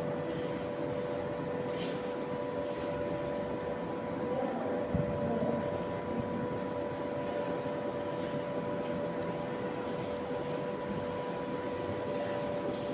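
Steady mechanical hum with a few constant tones, with occasional faint ticks and taps.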